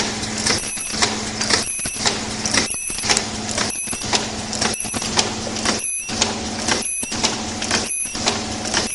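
Face mask ear-loop ultrasonic welding machine running: a steady noisy mechanical sound over a low hum, breaking briefly about once a second as the machine cycles.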